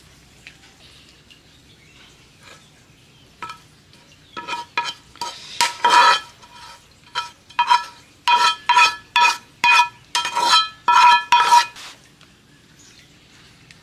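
Metal utensil knocking and scraping against a frying pan to get the last of a stir-fried topping out: about twenty short ringing clinks in quick runs, starting a few seconds in and stopping near the end.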